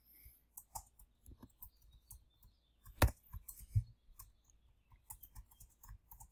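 Scattered faint clicks of a computer mouse and keyboard, the loudest about three seconds in with a low knock just after.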